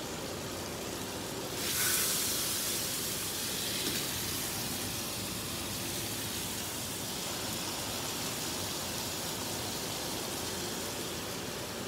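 Teriyaki-marinated striploin steak sizzling in a hot frying pan, a steady hiss that swells sharply about two seconds in, as the meat is turned or laid back into the pan, then settles gradually.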